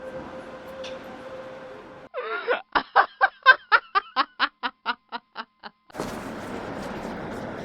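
A steady hum with a held tone cuts off suddenly. A voice then laughs: a short warble, followed by a long run of quick 'ha' pulses, about five a second, that fade away.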